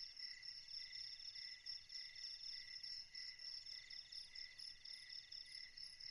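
Faint chorus of crickets chirping in steady, even pulses, with a faster trill among them.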